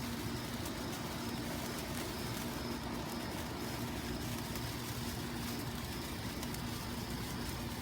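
Steady background noise with a constant low hum underneath, and no distinct events.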